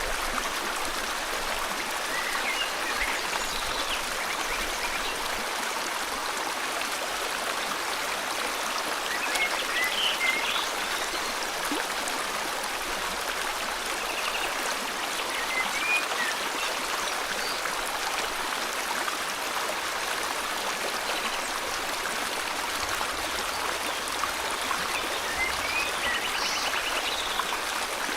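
River water flowing steadily, with birds calling now and then over it: a handful of short rising chirps and brief quick trills.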